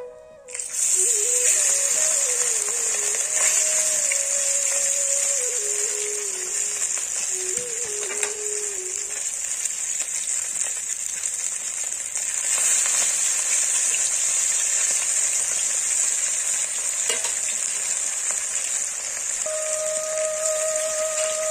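Bhetki (barramundi) fish steaks frying in hot oil in an iron kadai: a loud, steady sizzle that starts suddenly about half a second in, as the first piece goes into the oil.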